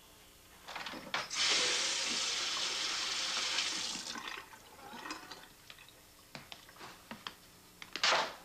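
Water running from a tap for about three seconds, then stopping, followed by a few light clicks and knocks and a short, sharp hiss near the end.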